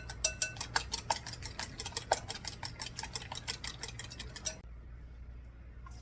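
Whisking an egg, cream and milk custard in a bowl: quick, steady clicking strokes of the whisk against the bowl, about six a second, that stop suddenly about four and a half seconds in.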